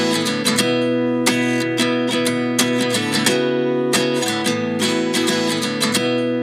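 Background music: an acoustic guitar strumming steady chords.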